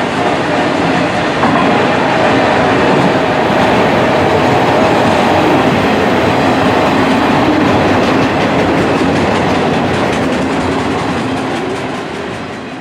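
A train rolling past: a steady rumble and the clickety-clack of wheels over the rail joints, fading away near the end.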